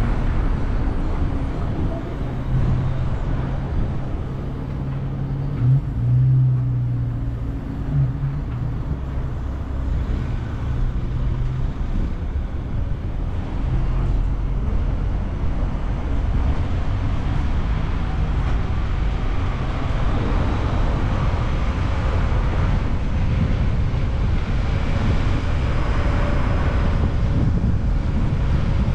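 Car driving on a road: steady engine, tyre and road noise. An engine note stands out for the first few seconds and changes briefly twice, about six and eight seconds in.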